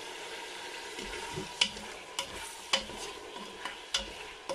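Lamb pieces, onions and a garlic-ginger cube sizzling in hot oil in an aluminium pot. From about one and a half seconds in, a plastic spatula knocks sharply against the pot about four times as the pieces are stirred.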